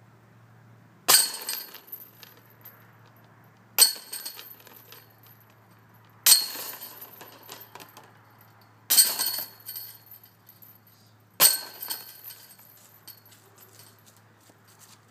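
Putted golf discs striking the hanging steel chains of a disc golf basket five times, about two and a half seconds apart: each a sharp metallic clash followed by about a second of jingling chain rattle.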